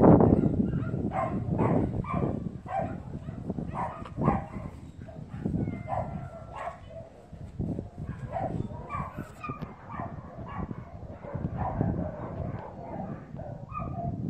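A dog barking repeatedly in short, uneven barks, about two a second, loudest at the very start.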